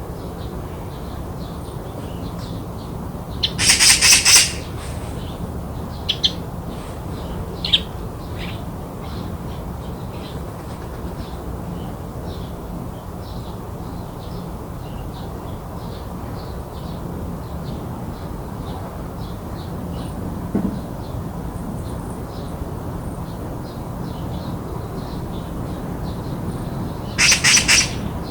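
Magpie chattering twice, each time a harsh rattling call about a second long, once about four seconds in and once near the end. Scattered faint high chirps and a steady low hum run underneath.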